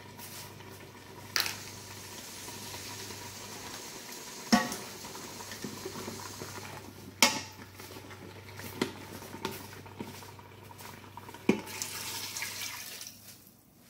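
A cooking utensil stirring and scraping in an Instant Pot's stainless steel inner pot over a steady sizzle, with four sharp knocks against the pot. Near the end, water is poured in from a bowl.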